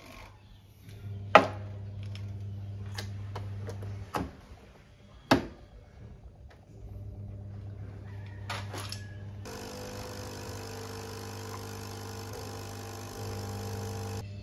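Capsule coffee machine being loaded and run. There are two sharp clicks as the capsule is put in and the lid is shut, and a low hum. About nine and a half seconds in, the pump starts a louder, steady buzzing as coffee runs out over ice, then cuts off just before the end.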